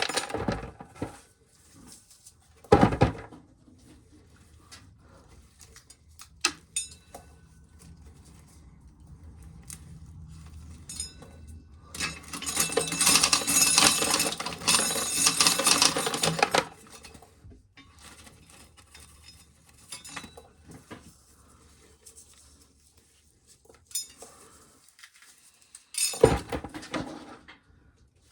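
Dried corn being shelled, with kernels clattering into a container. There are a few sharp knocks, and a dense rattling run of falling kernels lasting about five seconds near the middle.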